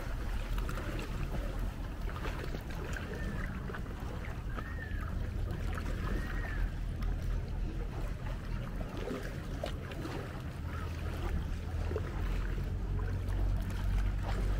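Kayak paddles dipping and splashing in calm sea water, over a steady low rumble. Three short, faint rising-and-falling calls sound a few seconds in.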